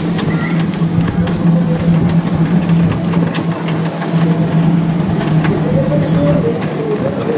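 A steady low mechanical hum with scattered rattles and clicks while riding in a bicycle taxi through a busy street. The hum stops near the end.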